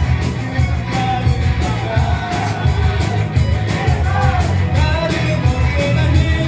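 Live rock band playing an upbeat song, with a lead singer over electric guitars, bass, synth and a steady drum beat.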